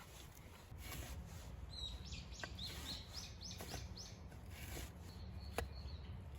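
A wild bird singing a quick run of about eight high, downward-sweeping notes, with a few sharp clicks and snaps over a steady low outdoor rumble.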